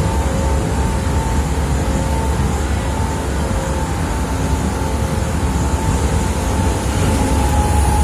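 Berlin S-Bahn train car heard from inside while running at speed: a steady low rumble of wheels on rail with a thin steady whine on top. Near the end the noise grows a little louder as a freight train starts to pass on the adjacent track.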